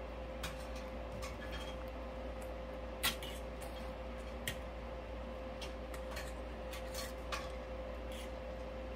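Scattered soft clicks and small crackles of a baby gumming and sucking on a puffed rice teething cracker, the sharpest click about three seconds in, over a steady hum.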